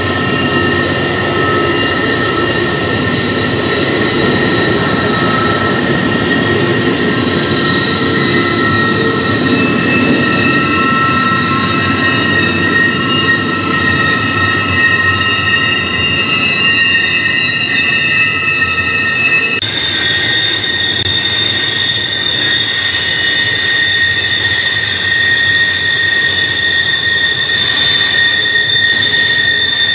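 Double-stack intermodal freight cars rolling past, their wheel flanges squealing against the rail on a tight curve over a steady rumble of wheels. The squeal holds several steady high tones that suddenly change pitch about two-thirds of the way through.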